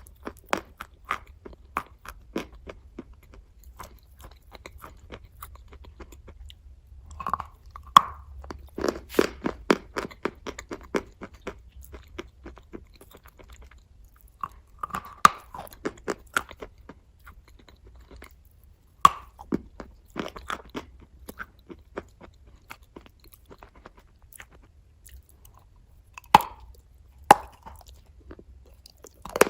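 A person biting and chewing hard white chalk dipped in red clay paste. It is an irregular string of sharp crunches and chewing, with a few louder bites spread through.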